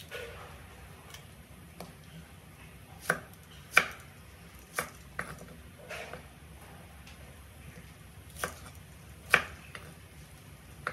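Kitchen knife cutting through an onion and striking a wooden cutting board: about eight sharp knocks at uneven intervals.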